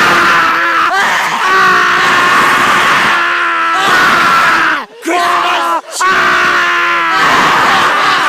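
A person screaming loudly in long, drawn-out cries that waver in pitch, broken by short gasps for breath about a second in and twice around five to six seconds in.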